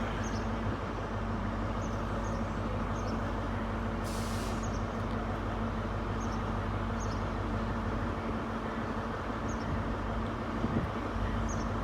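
Five-coach GWR Class 802 bi-mode train running on its diesel engines as it arrives at the platform: a steady engine drone, with a short hiss of air about four seconds in.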